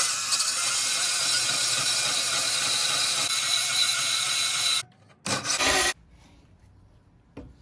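A power tool cutting into steel plate in a long pass of about five seconds, then a short second burst before it stops, trimming off a small chunk of the plate that is in the way.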